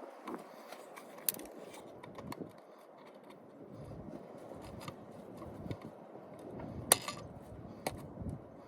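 Scattered metallic clicks, clinks and light scraping of hand tools and small parts being handled, with a sharper click about a second in and the loudest one near seven seconds.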